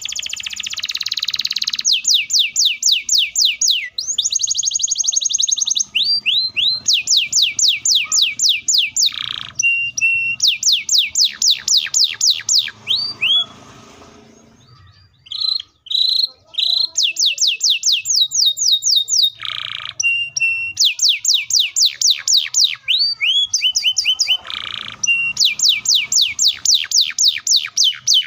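Domestic canary singing long, fast, tightly packed rolls: rapid runs of repeated high sweeping notes lasting a few seconds each, broken by short pauses and a brief quieter spell about halfway through.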